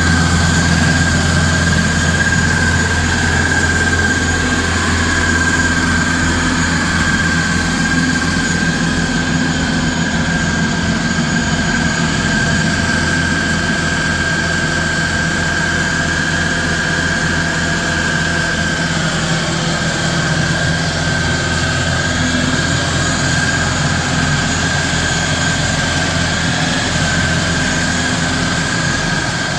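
Stump grinder running steadily: an engine drone with a constant high-pitched whine over it.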